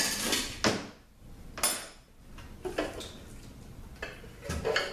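Metal transmission oil pan being pried off its silicone seal and lifted away from the case: a scrape, then a few separate metal clanks and knocks.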